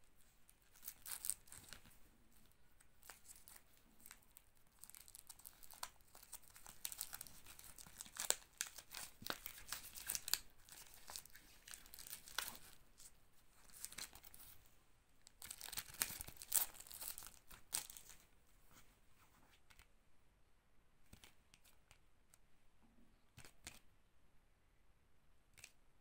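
Plastic shrink-wrap being torn and peeled off a CD, crinkling in bursts, then quieter handling of the cardboard sleeve with a few soft clicks in the last third.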